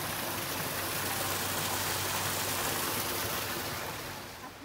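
Steady splashing of water from a fountain spout pouring into a swimming pool. It fades away near the end.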